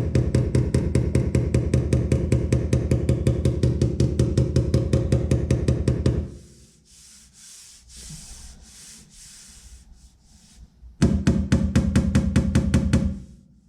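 Hammer tapping rapidly and evenly on the Suburban's steel body panel, the sheet metal ringing with each blow, as high spots in the dent repair are knocked down. The tapping stops for several seconds, during which there is soft rubbing, and a second run of taps comes near the end.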